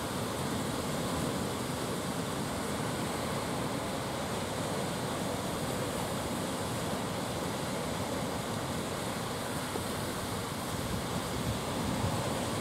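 Rough sea surf rushing steadily, with wind blowing.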